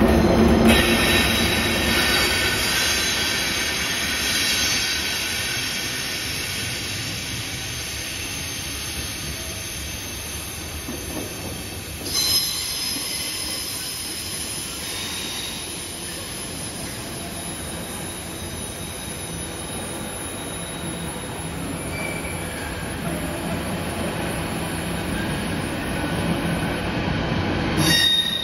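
Freight train led by two Class 90 electric locomotives rolls through a station, loudest as the locomotives pass at the start. Its container wagons then keep rolling past, with high-pitched wheel squeal several times: near the start, about twelve seconds in, and near the end.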